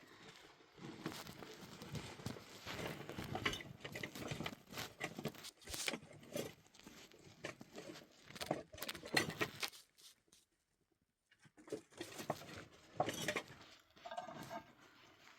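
Close handling noises: irregular rustling, crinkling and light clicks and clatter, broken by a short pause after about ten seconds.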